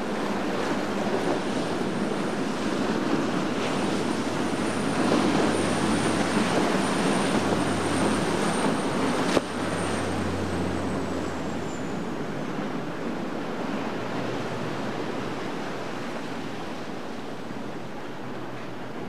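Viking 62 Convertible sportfishing yacht running fast past, a steady low drone from its twin diesel engines under the rush of its bow spray and wake. A thin high whine holds and then drops in pitch about ten seconds in as the boat goes by, and the sound slowly eases off after that.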